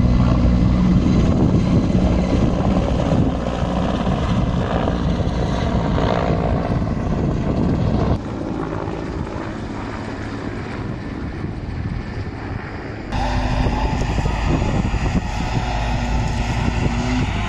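An engine running steadily, with abrupt changes in level about eight and thirteen seconds in.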